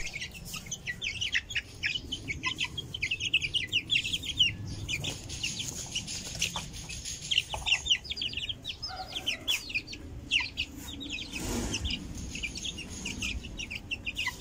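A group of young Aseel chicks peeping continuously: many short, high peeps, each dropping in pitch, overlapping as they walk about and peck.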